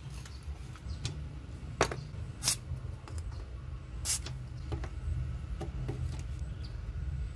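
Aerosol spray can fired in three short bursts of hiss at a gas stove's control-valve shaft, over a steady low rumble, with a few faint light clicks near the end.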